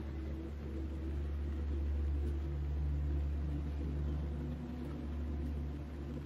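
Deep, steady low rumble that swells through the middle and eases off near the end, with faint sustained music tones above it.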